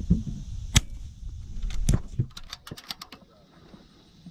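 A .22 rimfire bolt-action rifle shot cracks sharply about a second in, with a second loud crack near two seconds. A quick run of light mechanical clicks follows, and low wind rumble on the microphone fades out after the first two seconds.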